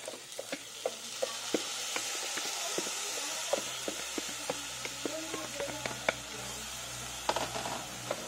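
Rice sizzling as it is sautéed in hot chicken fat with onions, garlic and ginger in a saucepan: a steady frying hiss with scattered sharp ticks and scrapes as the rice is poured in and stirred with a wooden spatula.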